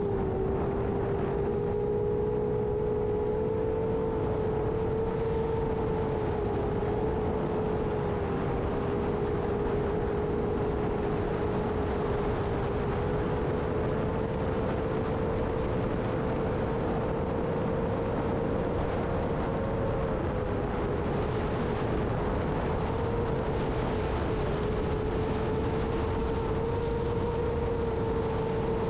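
Motors and propellers of a 7-inch long-range FPV quadcopter whining at a nearly steady pitch, dipping slightly now and then, over a heavy low rumble of wind on the microphone.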